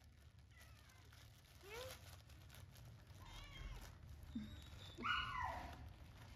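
Baby macaque calling three times: a short rising squeak about two seconds in, a wavering cry around three and a half seconds, and a stronger falling cry about five seconds in.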